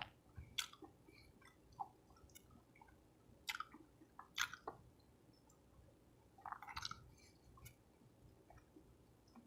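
A person chewing a soft taco: faint wet mouth sounds with scattered clicks and smacks, a few of them louder.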